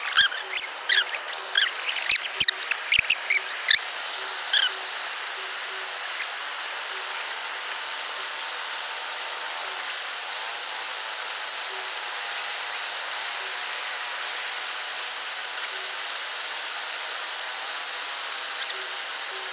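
Steady outdoor hiss beside a flowing creek. In the first four seconds it carries a quick run of short, high squeaky chirps, with a few more scattered later.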